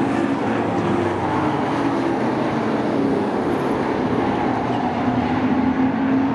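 Sport trucks running laps on a short oval track, their engines running hard in a steady, overlapping drone whose pitch wavers as the trucks pass.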